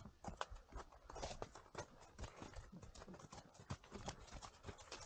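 Horses walking on a snowy trail, their hooves clip-clopping in a quick, irregular series of faint knocks.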